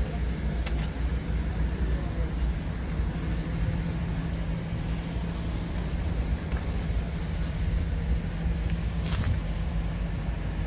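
Scania R tractor unit's diesel engine idling steadily, a low, even hum.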